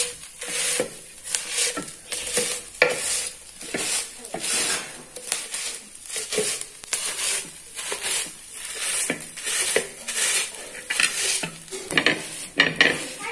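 Steel tumbler being ground over hot roasted chichurda fruits on an iron griddle, scraping and crunching them into a coarse mash in rhythmic strokes a little over one a second.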